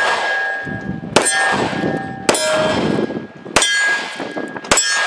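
Taurus 85 Ultra Lite .38 Special revolver fired four times in steady succession, about a second apart. Each shot is followed by the ringing clang of struck steel targets, and the ring fades over a second or so.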